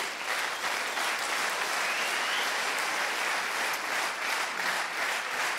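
Large theatre audience applauding: dense, steady clapping that swells up at the start, in response to a comedian's joke.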